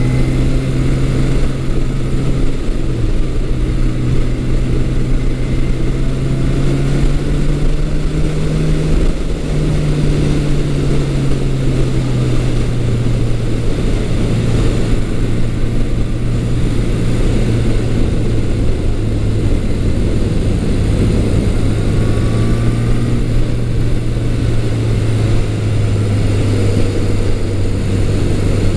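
Air-cooled inline-four engine of a 1980 Yamaha XS1100 Special running steadily while the motorcycle cruises under way, with rushing wind noise. Its note climbs around eight seconds in, then eases back down slowly.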